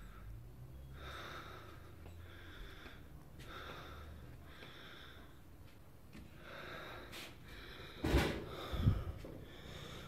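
A person breathing heavily close to the microphone, one breath about every second, with two louder short noises near the end.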